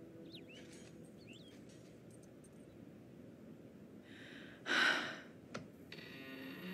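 A woman's single breathy sigh, about two-thirds of the way in, against an otherwise quiet background.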